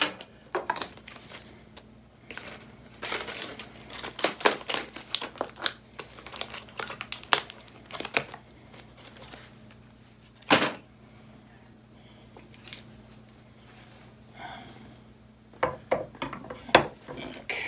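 Scattered clicks, taps and short rattles of gaming-chair parts and screws being handled during assembly, with one louder knock about ten and a half seconds in.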